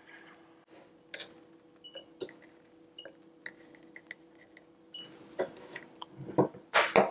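Sliced onion being dropped by hand into a glass mason jar: scattered light clicks and taps against the glass, with a few louder knocks in the last couple of seconds.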